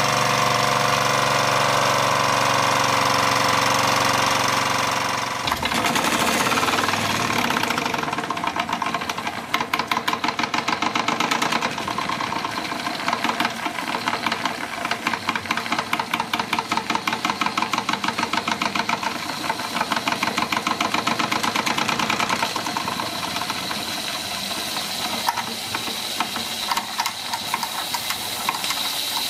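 Wilesco D24 toy steam engine running: a fast mechanical beat from its cylinder and exhaust, at first so quick that it blends into a steady buzz, then a distinct rapid chuffing clatter that slows and softens near the end.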